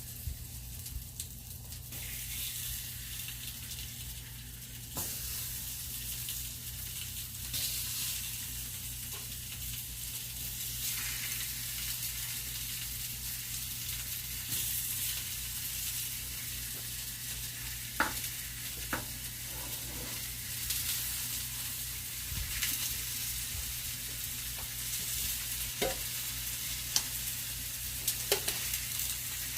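Cornstarch-coated chicken pieces sizzling and frying in hot oil in a pan, a steady hiss with occasional sharp pops and clicks, the loudest about 18 seconds in and near the end.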